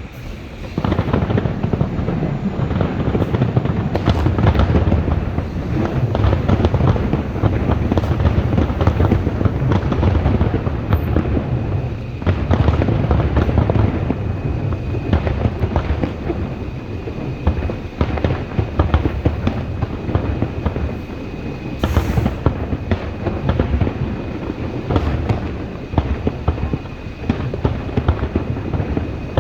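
Fireworks going off in a dense, continuous barrage: overlapping booms, bangs and crackles with a heavy rumble, hardly any gap between bursts.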